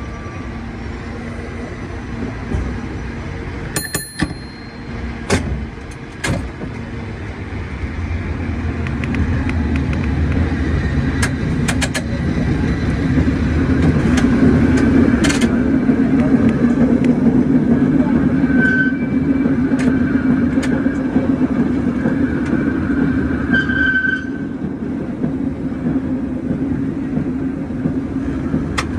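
San Francisco cable car running downhill on the California Street line: a steady rumble and rattle from the wheels and the cable under the street, louder from about eight seconds in. Sharp clanks and clicks come through in the first half, with a few short squeals later on.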